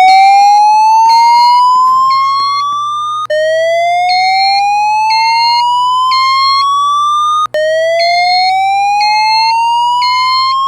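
Fire alarm voice evacuation system sounding a slow whoop tone: three loud sweeps, each rising in pitch for about four seconds before cutting off and starting again. This is the tone part of the cycle between repeats of the recorded evacuation message. Short, fainter, higher-pitched beeps repeat alongside it.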